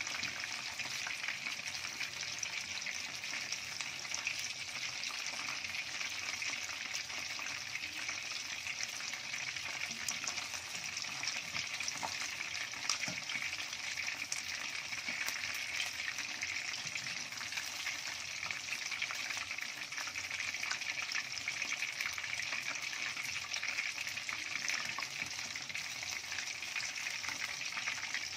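Cornflour-coated fish pieces deep-frying in hot oil in an aluminium wok: a steady sizzle, with occasional light taps of a slotted spatula as pieces are turned and lifted out.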